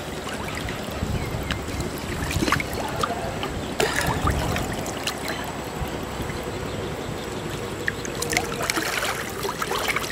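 Lake water sloshing and splashing around two men and a large Mekong giant catfish held in a landing net, with sharper splashes about four seconds in and again near the end.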